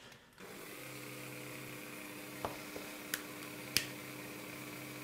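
A flexible-shaft rotary tool starts about half a second in and runs steadily at low speed, a steady hum with a faint high whine, spinning a bamboo skewer in its chuck. A few sharp clicks come through the middle, the loudest a little before the end.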